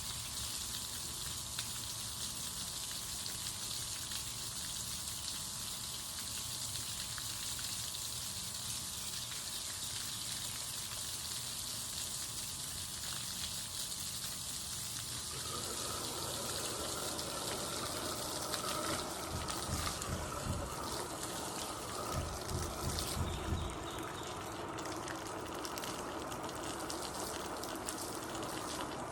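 Steady rush of gushing water, with a faint steady hum under it at first. About halfway through the sound changes and fills out, and a few low thumps come near the end.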